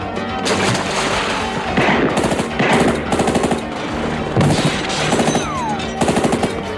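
Several short bursts of rapid automatic gunfire, the first about two seconds in and the last near the end, over a steady music score.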